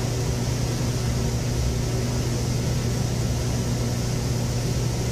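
Steady low hum under a constant hiss, the background noise of a small interview-room recording.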